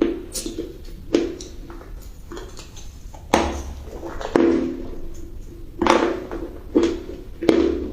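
Crunchy bites and chewing of a lemon treat close to the microphone: about seven sharp crunches at irregular intervals, each trailing off with a brittle crackle.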